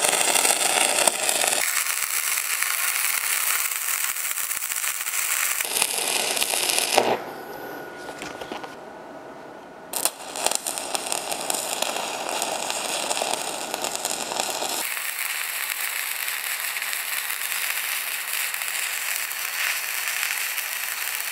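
Stick (MMA) welding arc from a MIG-200GP welder crackling and sputtering steadily as the electrode burns. The arc breaks off about seven seconds in and strikes up again about three seconds later.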